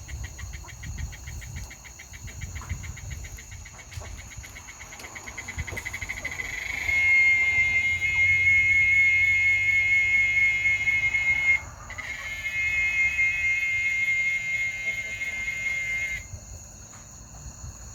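Cicada calling: a pulsed buzz whose pulses quicken over the first seven seconds until they merge into a loud, steady, high-pitched drone, which breaks off briefly about twelve seconds in, resumes, and stops abruptly about sixteen seconds in.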